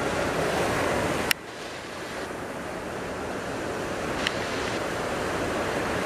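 Large ocean waves breaking on the shore: a steady, dense wash of surf noise. About a second in there is a click and the level drops suddenly at an edit, then builds back up.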